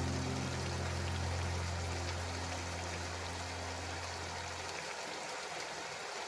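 The background song's last low note sustains and dies away, ending about three-quarters of the way through, over a steady hiss like running water or rain.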